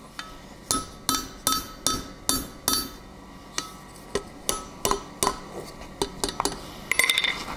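Hand hammer striking a hot 12 mm square steel bar over the anvil's horn, bending its end into a scroll. The blows come steadily, about two to three a second with a brief pause near the middle, each leaving a short ringing note.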